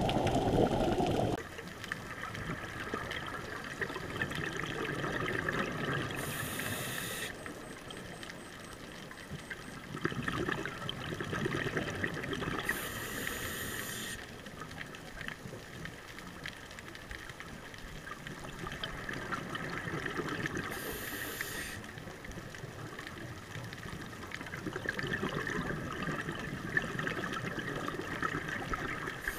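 Underwater scuba breathing through a regulator, picked up by the camera in its housing: swells of bubbling exhalation alternating with short hisses, in a slow cycle of about seven to eight seconds. The loudest bubbling comes right at the start.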